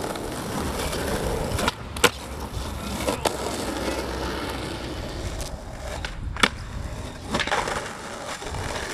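Skateboard wheels rolling on concrete, with several sharp clacks of the board popping and landing as tricks are done on a manual pad.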